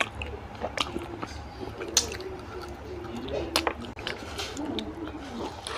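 A person chewing oily mutton curry with the mouth open, wet squishing and lip-smacking with several sharp mouth clicks.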